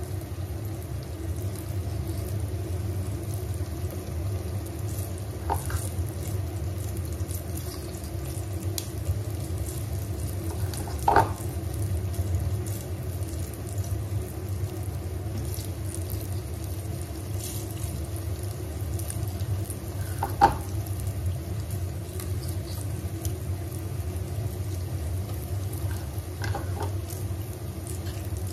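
Banana fritters sizzling steadily in hot olive oil in a frying pan, with a few sharp knocks against the pan as more scoops of batter go in.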